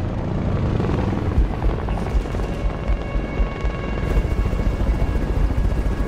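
Boeing AH-64 Apache attack helicopter flying low, its rotor beating in steady low pulses, with film-score music underneath; sustained musical tones come in a couple of seconds in.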